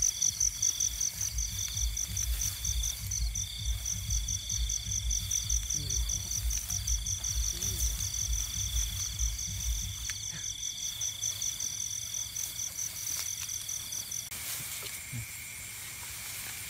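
Night insects calling in tall grass: a rapid pulsing high chirp over a steadier, broken trill, both stopping about 14 seconds in. A fainter, lower trill continues after that. Rhythmic low thuds from steps through the grass run under the calls for the first ten seconds or so.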